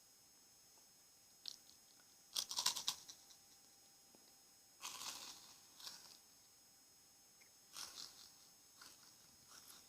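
Crisp crunching close to the microphone, in about six short bursts, the loudest about two and a half seconds in, much like something crunchy being bitten and chewed.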